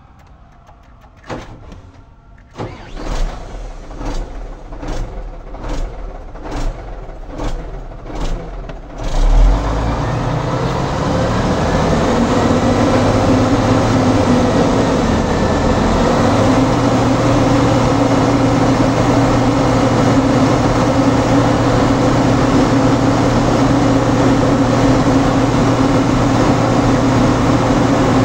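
Nissan Diesel truck's diesel engine cranked on the starter for about six seconds in rhythmic surges, catching with a loud burst about nine seconds in and then running steadily at idle.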